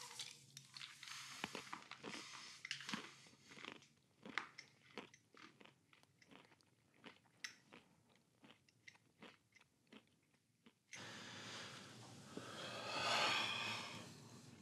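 A mouthful of pills being chewed, with irregular crunches for about ten seconds. Then a long rush of noise starts suddenly, swells and fades near the end.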